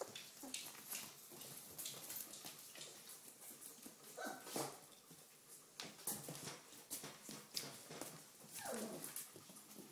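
Young Doberman Pinscher puppies whimpering, a short cry about four seconds in and a whine falling in pitch near the end, over many small clicks and taps.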